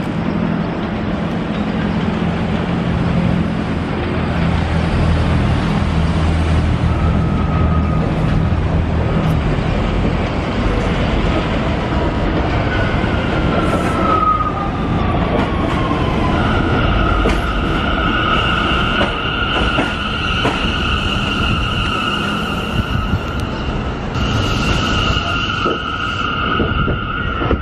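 Bombardier R179 subway train running into an elevated station and braking: a low steady hum at first, then a falling whine, then a long steady high-pitched squeal from the wheels and brakes as it slows to a stop, broken briefly near the end.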